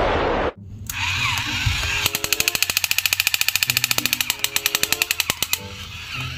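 The tail of a loud explosion sound effect cuts off suddenly about half a second in. From about two seconds in, a battery-operated toy action figure's machine-gun sound effect plays: a rapid, even electronic rattle of about ten clicks a second that runs for some three and a half seconds.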